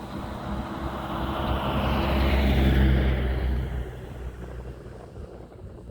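A motor vehicle passing by: its engine and tyre noise grow louder to a peak about halfway through, then fade away.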